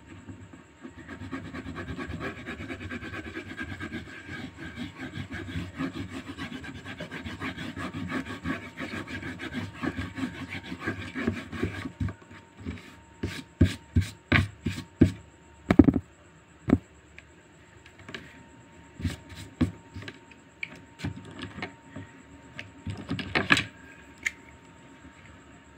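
Fast back-and-forth rubbing of a hand-held drawing tool on paper held on a clipboard, a steady scratchy stroking that stops about 12 seconds in. After that come scattered knocks and clicks, with a louder cluster near the end.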